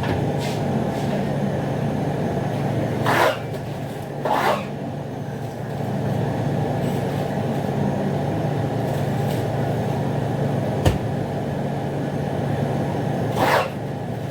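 Cling film or plastic wrap rasping in short pulls three times as fish packets are wrapped, over a steady low machine hum, with one sharp click near the middle.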